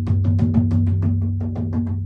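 Percussive music: a rapid run of drum or wood-block strikes, about seven a second, over a steady low drone. The strikes stop near the end.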